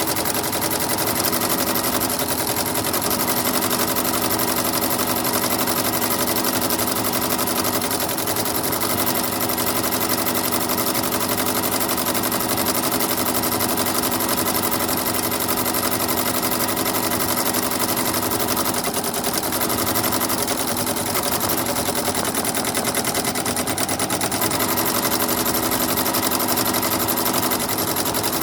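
Janome MB-7 seven-needle embroidery machine stitching a design, its needle bar hammering at a fast steady rate over a constant motor hum.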